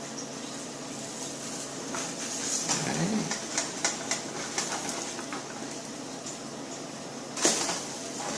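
Pancake batter sizzling steadily in a coconut-oiled frying pan, with a run of spatula clicks and scrapes against the pan as the pancake is turned over, and one sharper knock near the end.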